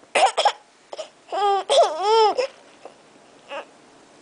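Infant crying: a few short sobbing cries, then about a second and a half in two long wailing cries whose pitch rises and falls, after which the crying dies down to a quiet whimper.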